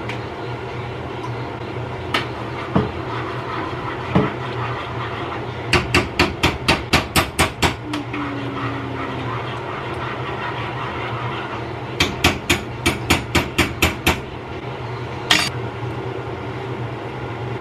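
Rapid sharp knocks of a kitchen utensil, about five a second in two runs of roughly ten, with a few single knocks between, over a steady low kitchen hum.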